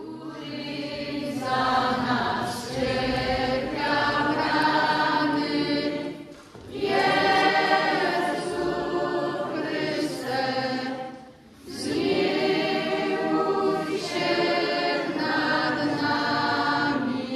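A choir of voices singing a church song in long phrases, with two short breaks about six and eleven seconds in.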